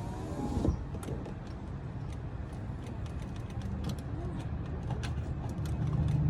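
Power window motor in a Honda Accord door whining as it drives the glass, then stopping with a clunk less than a second in. Scattered light clicks and a low rumble follow, the rumble growing louder near the end.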